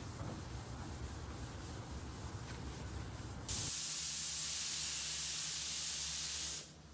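A low rumbling noise, then, about three and a half seconds in, a loud, steady hiss from an air-fed paint spray gun spraying, which stops shortly before the end.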